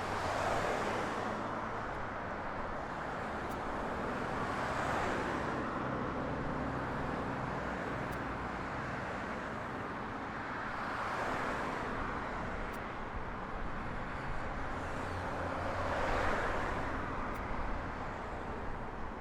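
Road traffic: about four vehicles pass one after another over a steady traffic hum, each swelling and then fading away.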